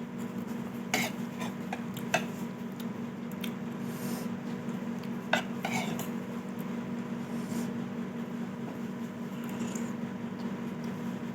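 A spoon clinking against a bowl a few times while porridge is scooped, the sharpest clinks about one, two and five seconds in. A steady low hum runs underneath.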